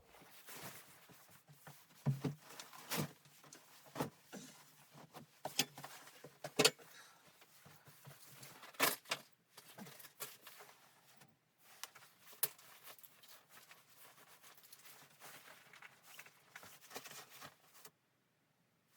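Irregular clicks and knocks of things being handled in a small room, the strongest about 2, 3, 6.5 and 9 seconds in, dying away about a second before the end.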